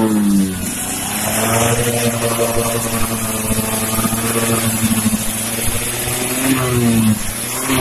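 Tuned racing Vespa scooter engine being revved while it is set up: the revs fall off at first, hold steady at a raised speed for several seconds, then climb in quick blips near the end.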